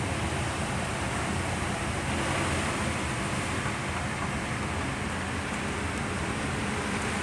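Strong hurricane wind blowing steadily, with a heavy low rumble of wind buffeting the microphone.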